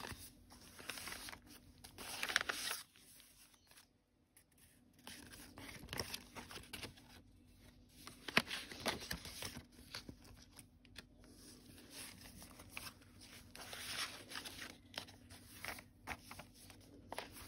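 Paper rustling and crinkling as cards, tags and pages of a handmade paper journal are handled and turned, in short irregular bursts with a quieter stretch about three seconds in.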